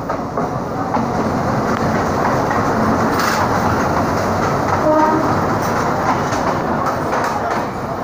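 Express train of LHB passenger coaches running past a platform at high speed: a loud, steady noise of wheels on rails, with a brief tone sounding about five seconds in.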